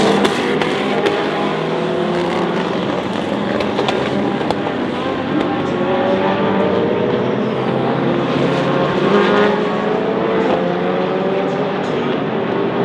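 Race car engines running at speed on track, several cars at once, their pitches rising and falling as they pass.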